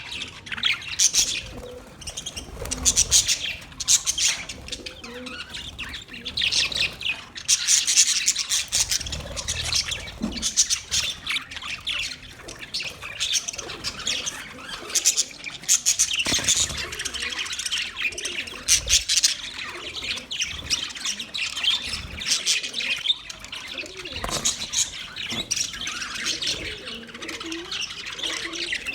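Budgerigars chirping and chattering: dense runs of quick, high chirps and squawks with brief lulls.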